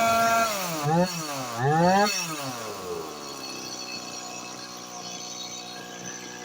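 Stihl MS 180 two-stroke chainsaw engine running at high speed, then the throttle is released and blipped twice in quick revs about a second apart. The engine speed then falls away and the sound drops to a low level. This is the saw being test-run after reassembly.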